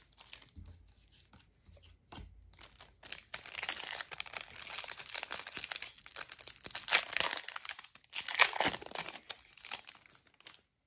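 A Pokémon TCG booster pack wrapper being handled, then torn open and crinkled, starting about three seconds in with a few sharp crackles near the end.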